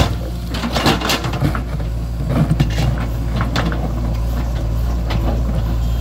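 Heavy diesel engine of earth-moving machinery running steadily under load, with a series of sharp clanks and knocks over it, most of them in the first half.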